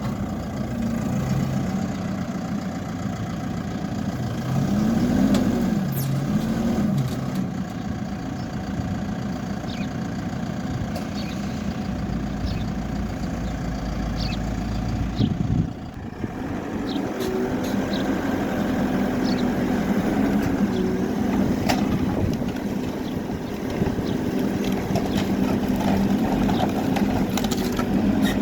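Diesel engine of a Hidromek Alpha backhoe loader running under work, its pitch rising and falling twice as it is revved, with scattered short knocks and clinks.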